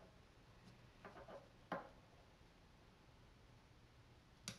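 Near silence broken by a few soft sounds of cardstock being handled: a short rustly flurry about a second in, a sharper tap just after, and another tap near the end.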